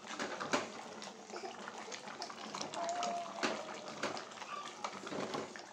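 Wooden spoon stirring a thick soup in a large aluminium pot: wet sloshing with irregular knocks and scrapes of the spoon against the pot.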